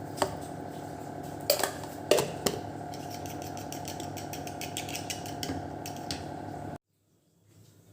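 Raw egg being beaten in a bowl with a utensil, the utensil clicking quickly and repeatedly against the bowl after a few separate knocks, over a steady hum. The sound cuts off abruptly about two-thirds of a second before the end.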